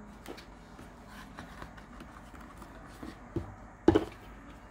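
Hands handling a deck of oracle cards: faint rustling and small clicks, then a soft knock and a sharper knock near the end.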